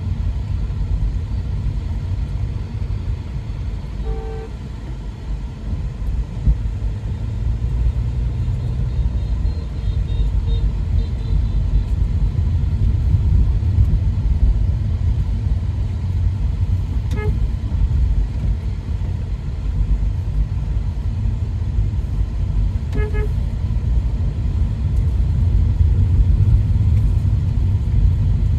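Steady low rumble of a taxi driving through town traffic, heard from inside the cabin. Short vehicle horn toots sound about four, seventeen and twenty-three seconds in, the last a quick double toot.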